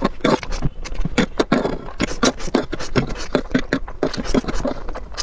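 A man slurping and chewing instant noodles: a quick, unbroken run of short slurps and smacks.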